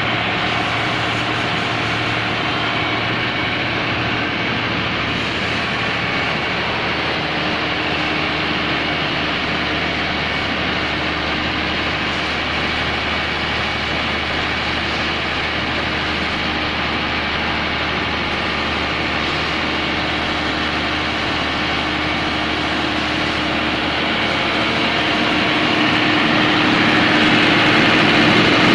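Komatsu SA6D110 six-cylinder diesel engine of an open-type 130 kVA generator set running steadily on test, growing slightly louder near the end.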